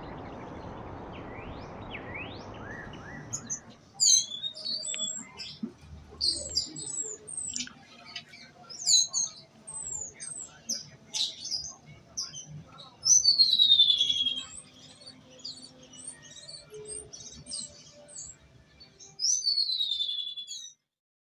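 A bird chirping and calling in quick, varied notes, with two long whistles that slide downward in pitch, one past the middle and one near the end. A steady hiss fills the first few seconds before the chirping starts, and the sound cuts off suddenly at the end.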